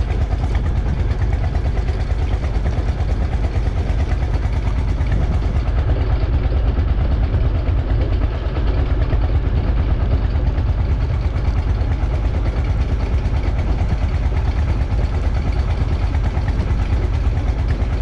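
An engine on board a fishing boat running steadily at an even speed: a loud, low, unchanging drone.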